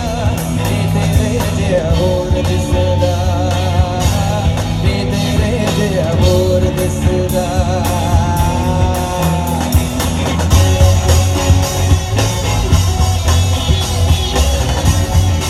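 Live rock band played through a PA: electric guitars, bass and drum kit, with a voice singing a held, wavering melody. The band gets louder about ten seconds in.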